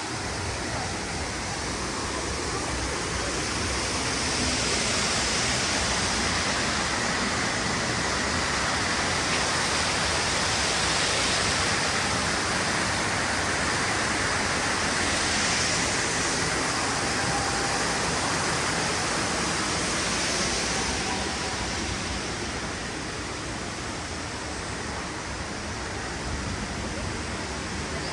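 Steady rushing noise of falling water, as from a waterfall, getting somewhat louder about four seconds in and easing off again before the end.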